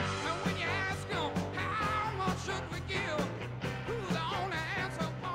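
Background rock music with a steady beat, bass and a wavering melodic lead.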